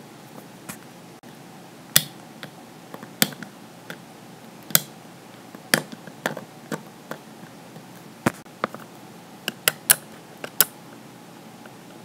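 A plastic fidget cube clicking as its switch and buttons are worked by fingers: sharp, irregular clicks, roughly a second apart, bunched closer together near the end.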